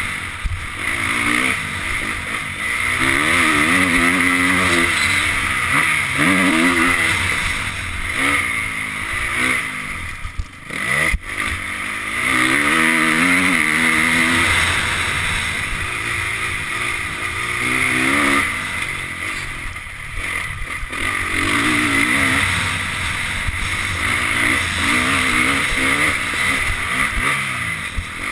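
Honda CRF450 four-stroke single-cylinder motocross engine revving hard and backing off again and again as the bike is ridden, its pitch climbing through each throttle run, with wind rushing on the helmet-mounted camera. About ten seconds in, the throttle shuts briefly and a sharp knock is heard, then the engine picks up again.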